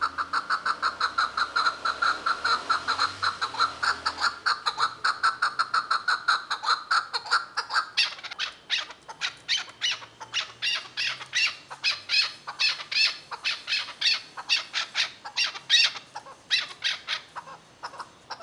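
Chukar partridge calling a long run of repeated short 'chuk' notes, about five a second at first. About halfway through they change to louder, sharper notes about three a second, with a short break near the end.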